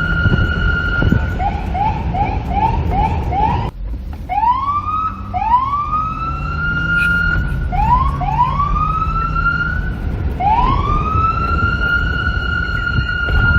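Police car siren: a quick run of short rising yelps, about two or three a second, cuts off suddenly for a moment about four seconds in. It then returns as slower rising whoops of about a second each, the last climbing into a steady held tone, over a low rumble.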